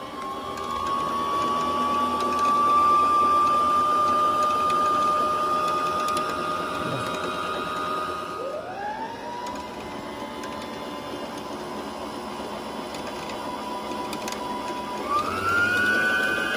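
Brother XM3700 sewing machine's motor running steadily to wind the bobbin, a whine that dips and picks up again about halfway through, then speeds up to a higher pitch near the end as the bobbin fills.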